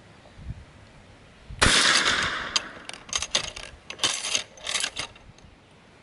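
A single gunshot strikes a padlock hanging on a steel chain about one and a half seconds in. It is followed by a few seconds of rapid metallic clinks and rattles as the lock and chain swing on the jig.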